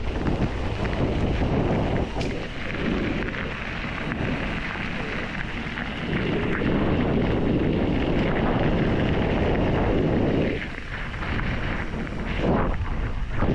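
Wind buffeting the microphone of a helmet-mounted camera on a moving mountain bike, a dense low rumble mixed with the tyres rolling over a dirt and gravel trail. It eases off twice, briefly, before rising again.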